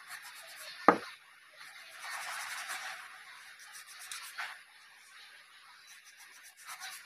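Handling noise from fitting a carbon brush into a mixer grinder's motor: a sharp click about a second in, then soft rubbing and scraping of a small metal spring and a screwdriver against the plastic housing.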